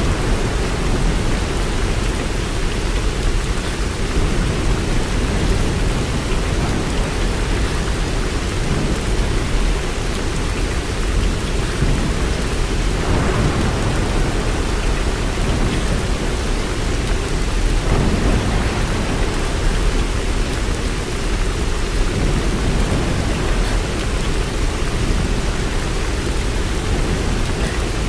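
Steady rain with a continuous low rumble of thunder underneath.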